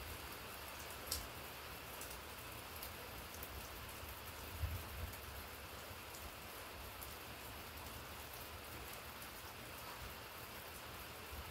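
Steady rain falling, an even hiss, with a few sharp taps of nearby drips, one about a second in.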